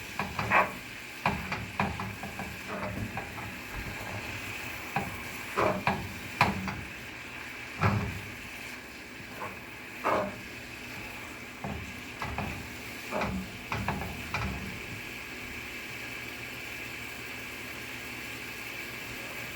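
Ground taco meat and chopped peppers sizzling in a frying pan, stirred with a utensil that knocks and scrapes against the pan in irregular strokes. The stirring stops about fifteen seconds in, leaving only the steady sizzle.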